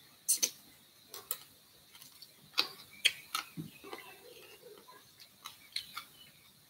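About ten sharp clicks and small crunches in loose clusters: the sounds of roasted quail being eaten by hand, with its small bones picked apart and set down on a wooden cutting board.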